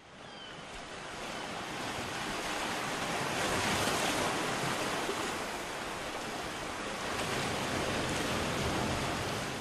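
Sea and wind noise: a steady, even wash of water and air that builds over the first few seconds and then holds.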